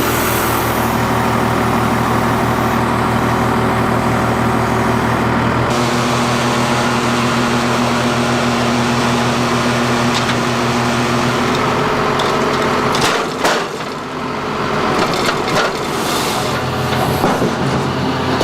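Spaltfix K540 firewood processor running steadily under load as it cuts and splits logs, with wood cracking sharply a couple of times in the second half.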